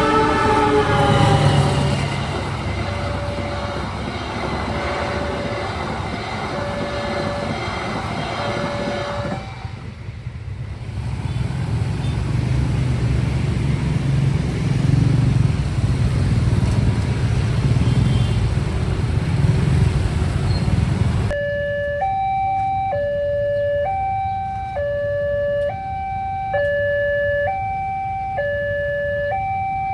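Railway level-crossing warning alarm: an electronic two-tone signal alternating between a lower and a higher note about once a second. For the first two-thirds it is half-buried under the rumble and noise of a passing train, whose horn sounds at the very start, falling in pitch. About 21 seconds in, the train noise cuts off abruptly and the alarm is heard clearly on its own.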